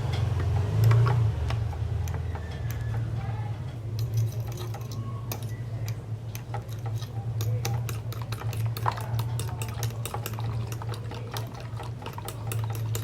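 Eggs being beaten by hand in a bowl, the utensil clicking rapidly and unevenly against the bowl, over a steady low hum.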